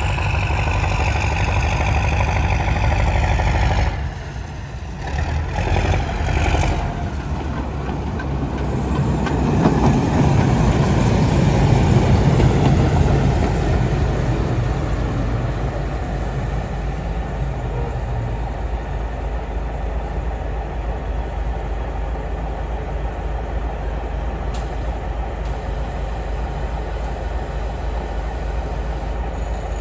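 Diesel locomotive engine running. After a break about four seconds in, the engine of the small diesel locomotive LJM T23 109 swells as it rolls past, loudest around twelve seconds in, then runs on steadily as it moves away.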